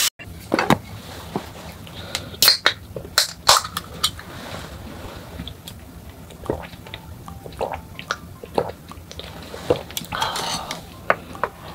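Close-miked scattered sharp clicks and taps of a beer can and food packaging handled on a table, with gulps of beer drunk from the can about halfway through.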